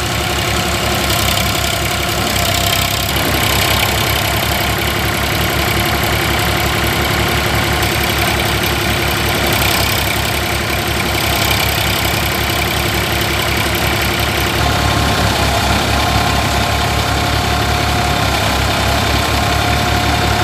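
Massey Ferguson 5245 DI tractor's diesel engine running steadily under load, driving a paddy thresher. The thresher's drum adds a steady hum over the engine's even low beat while rice bundles are fed in.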